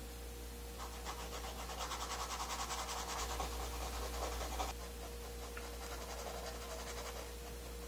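Paintbrush scrubbing oil paint onto a stretched canvas in quick back-and-forth strokes, a rapid scratchy rubbing for about four seconds, then lighter strokes again near the end.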